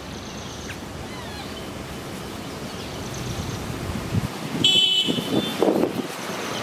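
Road traffic going by, growing louder, with a short high-pitched vehicle horn toot a little under five seconds in.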